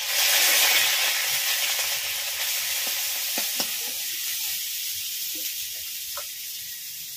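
Grated onion hitting hot mustard oil in a wok (karai): a loud sizzle starts at once and slowly dies down as it is stirred with a spatula. A few short scrapes of the spatula against the pan come in the middle.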